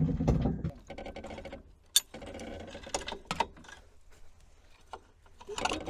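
Scattered metallic clicks and clinks, with one sharp click about two seconds in, as a tow cable is unhooked from an off-road vehicle. A low steady hum stops under a second in.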